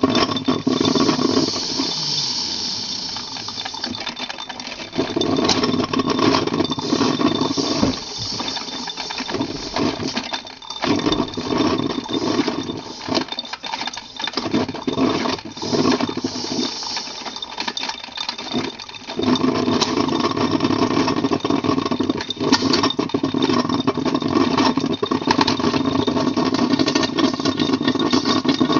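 Electric motor of a coffee-bar machine running in spells, stopping and starting again several times, with clatter in between; it runs steadily over the last part.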